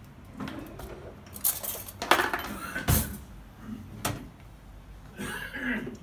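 Kitchen utensils and a bowl clattering: a few sharp knocks and clinks between about one and a half and four seconds in, the loudest about two seconds in.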